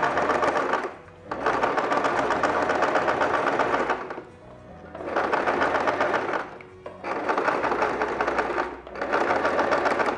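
Domestic electric sewing machine running in bursts, stitching fast and stopping briefly four times as it topstitches bias tape a few millimetres from the fabric edge. Soft background music underneath.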